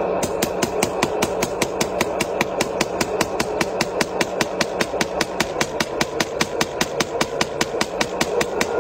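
Hydraulic breaker on a remote-control scale model excavator hammering a concrete slab: rapid, even blows at about five a second over a steady motor hum.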